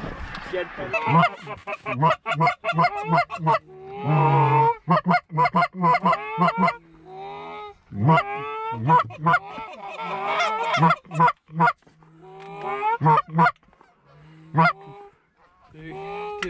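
Canada goose honks and clucks, many loud, rapid calls overlapping one after another, easing off near the end as a flock comes in to the decoys.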